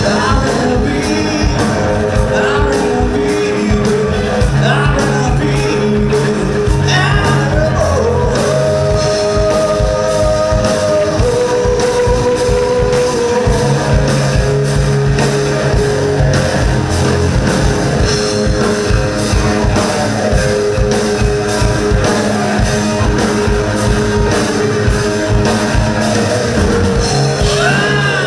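Live rock band playing: a singer over two electric guitars, electric bass and a drum kit, with a steady driving beat.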